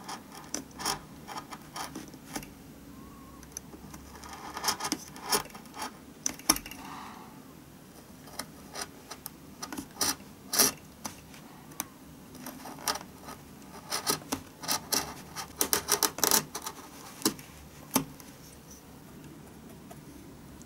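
Hobby knife blade prying and scraping at the edge of a violin's top, opening a slot for the saddle: an irregular run of sharp wooden clicks and short scrapes, coming in clusters with quieter pauses between.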